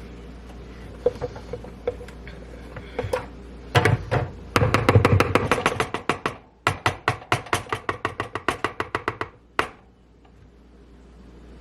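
Mixing spoon clacking rapidly against a bowl while stirring muffin batter, about five knocks a second, in two runs that stop abruptly near the end.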